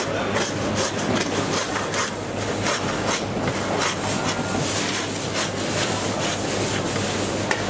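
Butcher's knife working through meat: quick, repeated scraping and cutting strokes, over a steady low machine hum.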